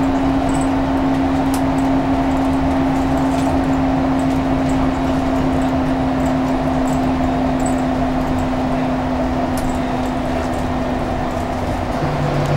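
Scania K360UA articulated bus's five-cylinder diesel and ZF Ecolife automatic driveline running under way, heard from inside the passenger cabin: a steady drone with a whine that drops to a lower pitch near the end.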